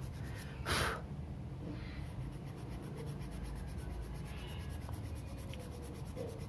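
A small metal hand file rasping lightly on a thin plastic action-figure joint part, over a steady low hum. A brief noisy burst comes about a second in.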